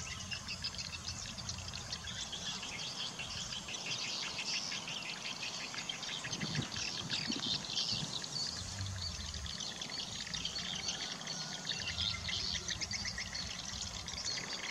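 Steady outdoor chorus of birds chirping and insects trilling, dense and continuous.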